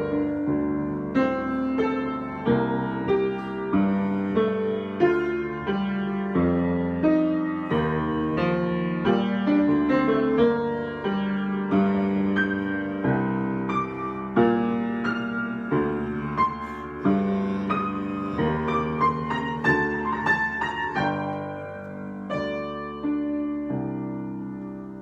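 Solo piano improvisation: a steady flow of struck notes and chords that ring and decay, several a second, getting softer near the end.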